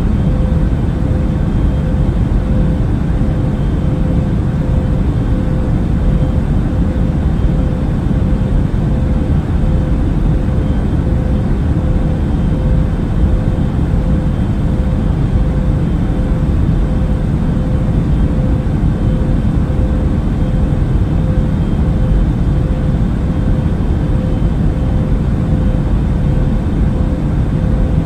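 Jet airliner cabin noise in flight: a steady, unchanging low rumble with a faint steady hum on top.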